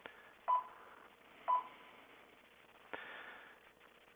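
Two short electronic beeps at one pitch, a second apart, then about three seconds in a click followed by a brief hiss.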